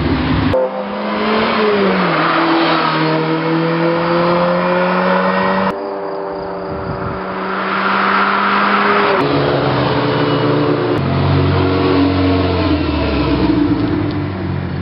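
Ferrari GTB Turbo's turbocharged V8 engine running as the car drives off and away, its note holding steady pitches with a drop about two seconds in. The sound cuts abruptly to a different level and pitch several times.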